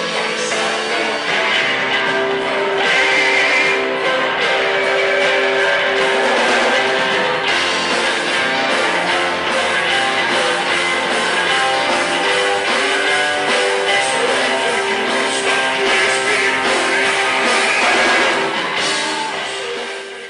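Band music led by guitars, playing steadily and fading out near the end.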